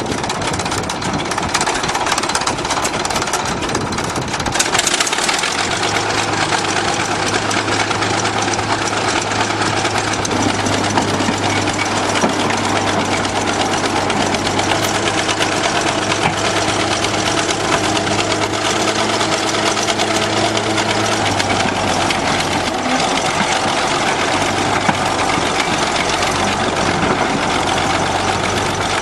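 Bulldozer's diesel engine running steadily, with a steady low hum coming in about five seconds in.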